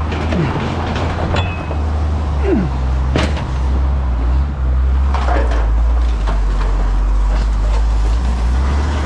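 Scrap being unloaded from a trailer: scattered metal clanks and scrapes, the sharpest about three seconds in, with a couple of short falling squeaks. Under it an engine runs steadily at a low pitch.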